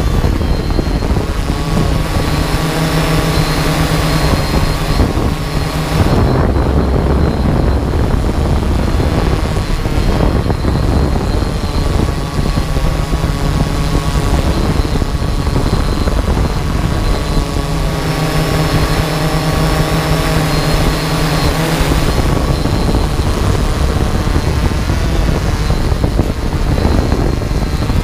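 Small multirotor drone's electric motors and propellers whirring steadily, picked up by its own on-board camera, with the pitch shifting a little as it moves.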